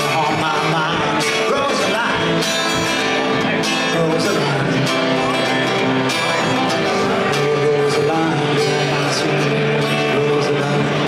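Music: a song with guitar and singing over a steady beat.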